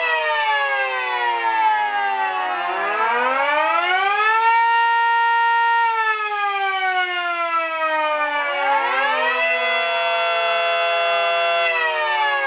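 Two miniature replica civil-defense sirens, a Mini Sterling M and a Mini 5T, sounding in alternation. As one winds down the other winds up, holds its chord for about a second and a half, then slides down, and the first winds back up about two thirds of the way in and holds before falling near the end.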